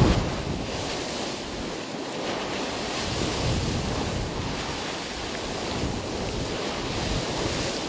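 Wind buffeting the microphone in the open: a steady rushing noise with a low rumble, a little louder at the very start.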